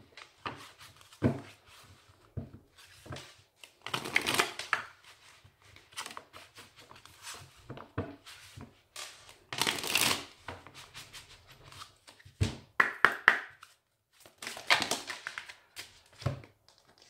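A deck of oracle cards being shuffled by hand: several bursts of shuffling, with short clicks and taps between them as the deck is squared and cards are spread out on a cloth mat.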